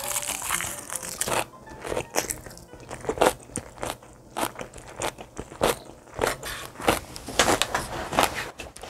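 Close-miked chewing of a mouthful of raw yellowtail sashimi wrapped in seaweed with rice and crunchy white kimchi. The chews are wet and crunchy and come irregularly, about twice a second.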